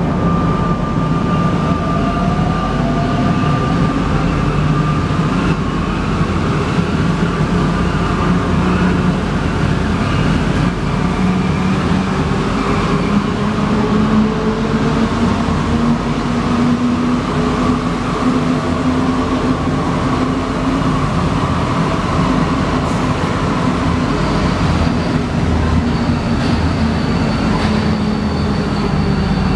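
Alstom NS-93 rubber-tyred metro train running, heard from inside the car: a loud steady rumble with the traction motors' whine sliding up in pitch. A faint high steady tone comes in near the end.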